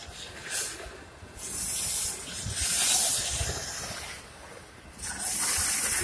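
Autorack freight cars rolling past with a low rumble from the wheels, broken by several bursts of hiss about a second long.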